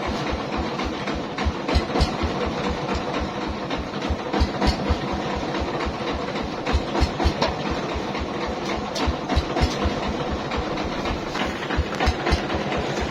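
Mobile rice milling machine running: an engine pulsing with low, even thumps about four times a second, with the mill's irregular clattering and rattling over it.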